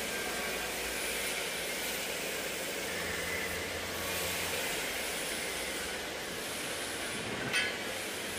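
CNC tube bending machine running: a steady mechanical hiss and hum, with one short sharp click about seven and a half seconds in.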